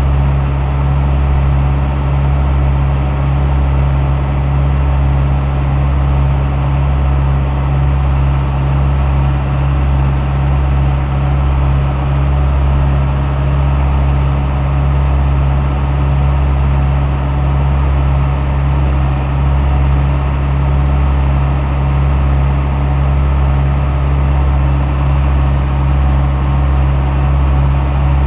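Daewoo 75V mini excavator's diesel engine running steadily, a deep, even drone that does not change.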